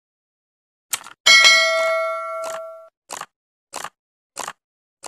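Subscribe-button animation sound effects: a mouse click, then a bell ding that rings on for about a second and a half, followed by a string of short, sharp sounds about every two-thirds of a second.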